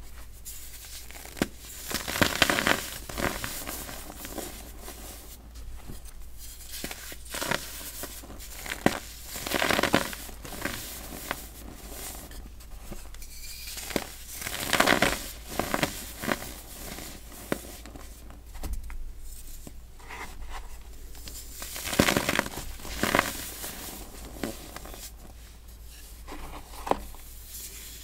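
Compacted baking soda moulded into pyramid blocks, crushed and crumbled by bare hands. It crunches in irregular louder bursts, with softer powdery crumbling in between.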